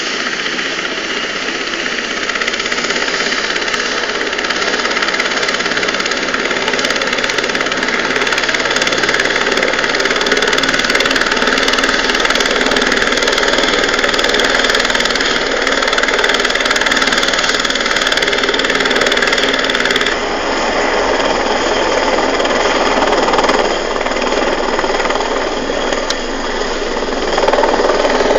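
AS350 Écureuil single-engine turbine helicopter running, a steady loud engine and rotor sound. The high hiss eases about twenty seconds in, and the sound swells louder just before the end.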